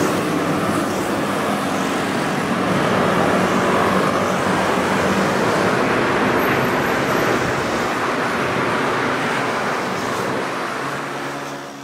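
City street traffic noise: a steady wash of passing cars' engines and tyres on a busy road, fading out at the end.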